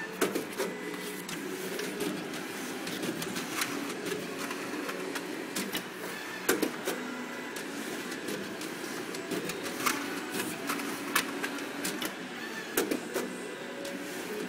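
Sheet of paper being handled and folded on a table, with scattered crinkles and taps, over a steady low background hum.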